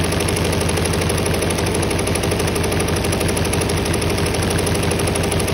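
Multi-needle commercial embroidery machine stitching at speed, a steady rapid clatter of needle strokes over a constant hum. It is sewing the outline stitch around the edges of a twill patch to tack it down.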